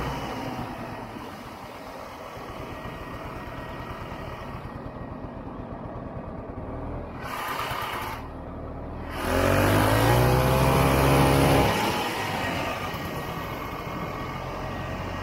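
Vintage Ski-Doo Olympique 250's two-stroke engine running while riding, easing off partway through, then revving up hard for about two seconds with its pitch rising, before settling back to a steady run.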